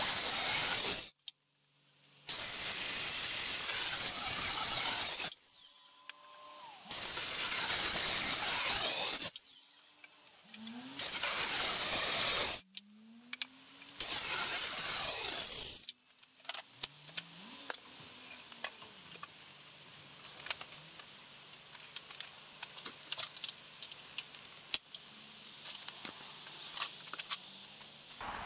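Black & Decker corded circular saw cutting through a wooden beam in repeated bursts of a few seconds, its motor winding down with a falling whine between cuts. After about 16 s the sawing stops and only light clicks and rattles remain.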